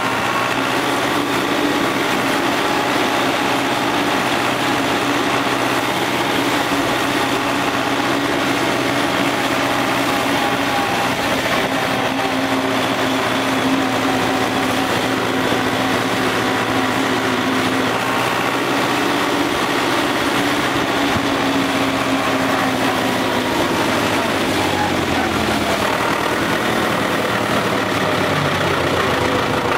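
Case David Brown 995 tractor's three-cylinder diesel engine running steadily as the tractor is driven along. The engine note drops a little near the end and then picks up again.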